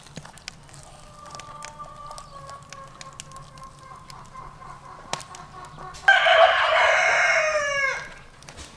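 A rooster crows loudly about six seconds in: one call of about two seconds that drops in pitch at the end.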